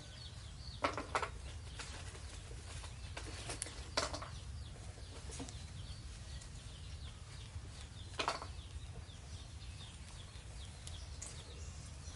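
Chickens clucking faintly in the background, with a few short rustles of cloth being handled and a steady low hum underneath.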